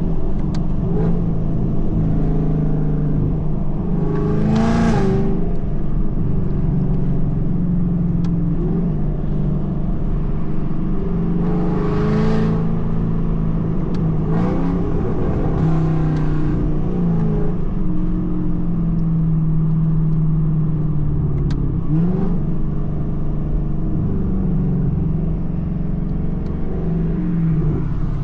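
2024 Mustang GT's 5.0 V8 running loud through Kooks headers while driving in traffic, a steady deep exhaust drone whose pitch rises and falls a few times as the car speeds up and slows, with a few brief whooshes.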